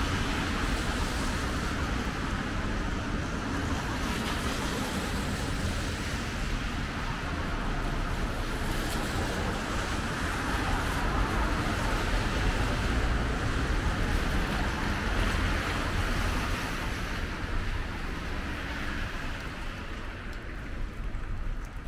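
Street traffic on a wet road: a steady hiss of tyres on wet asphalt over low engine rumble, easing a little near the end.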